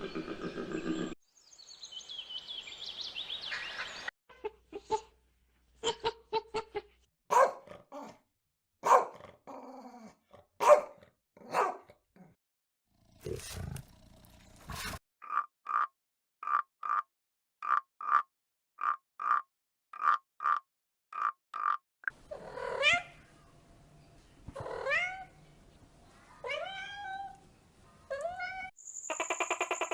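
A sequence of different animal calls, one clip after another: scattered calls early on, then a run of short calls at an even pace of about one and a half a second, then several calls that sweep up in pitch.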